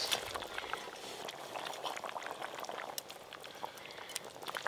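Fish curry bubbling at a boil in a pot over a wood fire, with many small pops and ticks, as fried fish pieces are slid in off a metal spatula.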